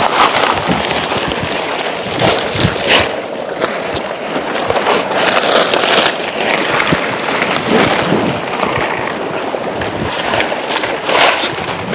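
Steady rush of flowing river water, with irregular sharp cracks and knocks scattered throughout.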